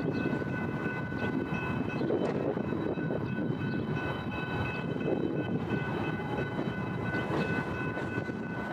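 Freight train of Herzog hopper cars rolling past at a steady speed: a continuous rumble of steel wheels on the rails, with faint steady high-pitched ringing tones over it.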